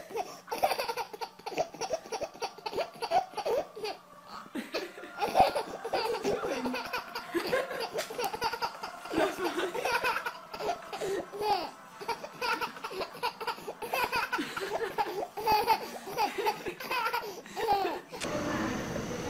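A baby laughing hard, in a long run of short, repeated bursts of laughter.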